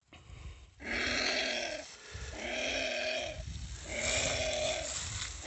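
Giant anteater pup crying out three times, each a long cry of steady pitch lasting a little over a second: the call of a pup separated from its mother.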